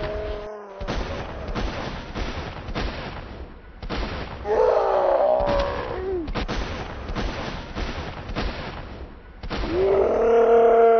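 Gunfire sound effects: rapid, irregular shots, one after another, laid over a water-gun fight. High-pitched screaming comes in about four and a half seconds in and again near the end.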